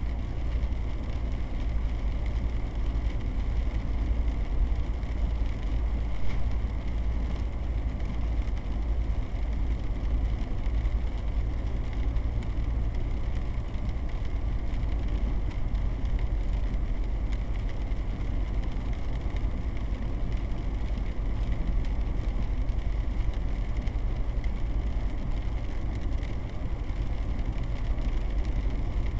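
Steady driving noise heard from inside a car's cabin, engine and tyres on a wet road, mostly a deep low rumble.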